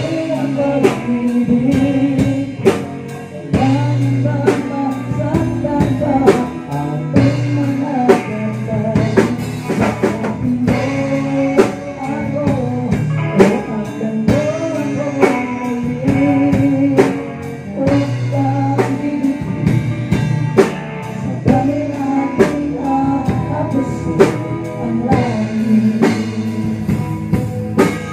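Live band playing a song, amplified: drum kit and electric guitar, with singing over them.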